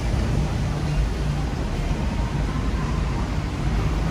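City street traffic: a steady rumble with a hiss of noise over it.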